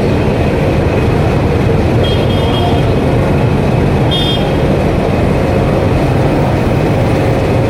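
Steady, loud running noise of a moving vehicle, with a few faint short high-pitched squeaks about two and four seconds in.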